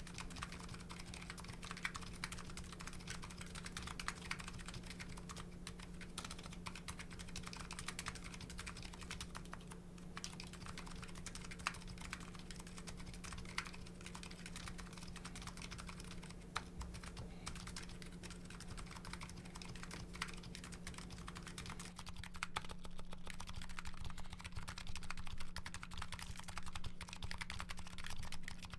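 Continuous fast typing on a Nuxros Kraze custom keyboard with MetaPulse electro-capacitive switches and CRP R5 keycaps: a dense stream of key clicks with a few louder strikes. The typing grows somewhat louder about three-quarters of the way through.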